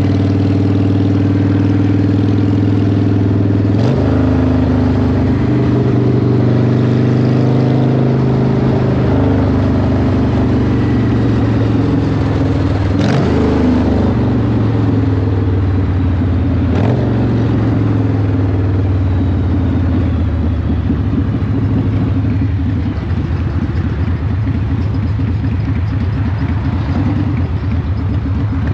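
Cruiser motorcycle engine running under way, heard from the rider's seat. Its note steps up and down several times with gear changes, then eases off over the last few seconds as the bike slows.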